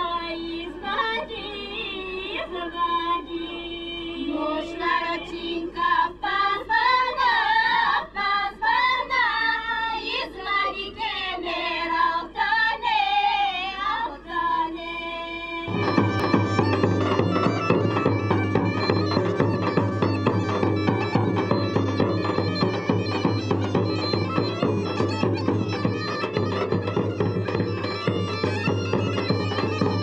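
Bulgarian folk music with a drone. For about the first half, an ornamented, wavering melody sounds over a steady drone. About halfway through there is an abrupt cut to a louder, fuller piece led by bagpipes.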